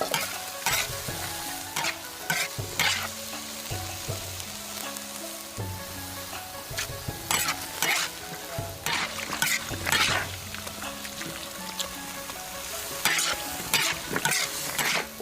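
Food sizzling as it fries in a pan, with a steady hiss broken every second or two by louder scraping bursts as it is stirred.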